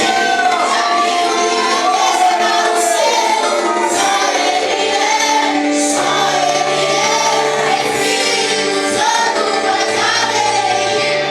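A group of voices singing a Portuguese Christian worship song over instrumental accompaniment, with held, gliding sung notes; low bass notes join about six seconds in.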